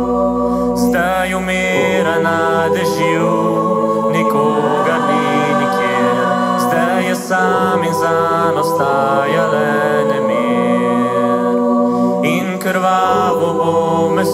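Vocal group singing held chords in harmony, the chords changing every second or two, over a band accompaniment; a low bass note sounds under the first couple of seconds.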